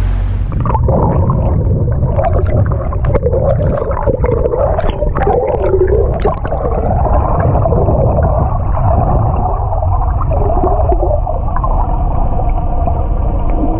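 Muffled underwater noise picked up by a camera held below the surface: water rushing and gurgling over a low rumble, with wavering tones that settle into a steadier hum about halfway through.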